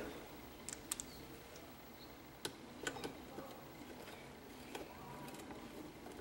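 A few faint, scattered metallic clicks as a small 8 mm bolt is handled and fitted by hand into a YZ250F's aluminium engine crankcase.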